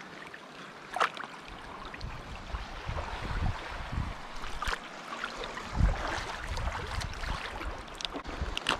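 Water sloshing and lapping at the water's edge, with gusts of wind rumbling on the microphone and a few sharp knocks, about a second in, near the middle and near the end.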